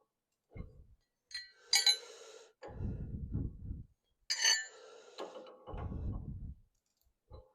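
Steel wrenches clinking against the nut on the tractor's clutch rod yoke twice as the nut is tightened. Each sharp clink is followed by about a second of low rumbling handling noise.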